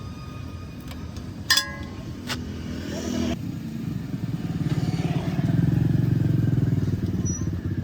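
A motor vehicle engine running, swelling louder about halfway through. A sharp metallic clink rings out about a second and a half in.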